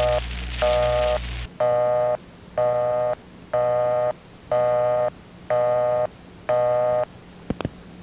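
Telephone busy signal: a two-note tone beeping evenly about once a second, eight times, with a low hum under the first beeps. Two sharp clicks follow near the end.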